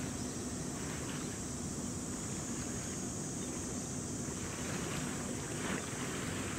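Steady outdoor sea ambience: wind rumbling on the microphone, with soft waves washing now and then.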